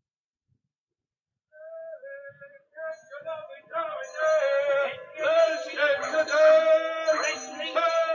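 Music comes in after about a second and a half of silence: first a single held note, then from about three seconds in several more parts join and it grows louder. It serves as linking music between scenes.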